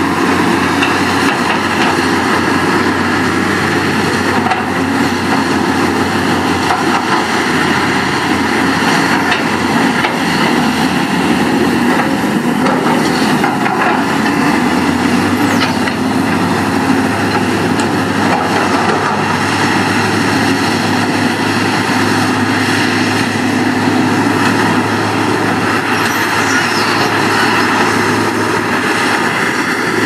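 Diesel engine of heavy earthmoving machinery running steadily and loudly, its low note changing about halfway through.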